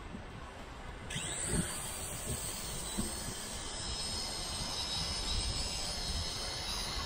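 Aden E58 Pro quadcopter's motors and propellers spin up about a second in with a quick rising whine, then run as a steady high-pitched buzz during its automatic take-off.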